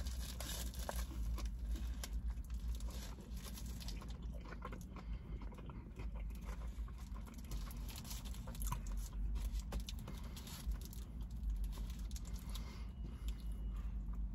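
A person biting into and chewing a cheeseburger close to the microphone, with small wet clicks and soft crunches, over a steady low hum.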